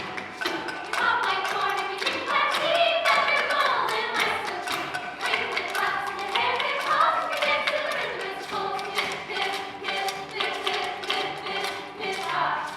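Voices singing a song from a stage musical over a steady tapping percussion beat.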